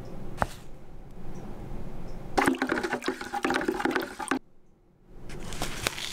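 Water swirling and sloshing in a pail as hydroponic nutrient solution is stirred with a stick, loudest in a stretch through the middle, with many small clicks; it stops briefly and starts again near the end.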